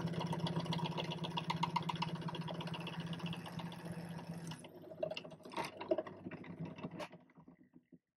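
Drill press running, its bit boring into the metal body of a hand-crank pencil sharpener. The steady motor hum stops abruptly about four and a half seconds in, and a few light knocks and clinks follow.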